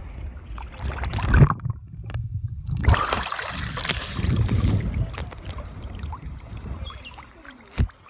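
Lake water splashing and sloshing around a phone held at the surface in a waterproof pouch as a swimmer moves, the sound rough and partly muffled. Louder splashes come about a second and a half in and again at three seconds, and there is a short sharp knock just before the end.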